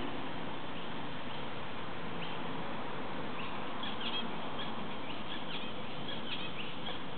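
Small finches chirping in short, high calls, sparse at first and coming more often in the second half, over a steady background hiss.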